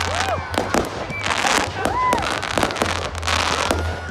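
Fireworks going off in quick succession: sharp bangs and bursts of crackling, with whistles that rise and fall in pitch.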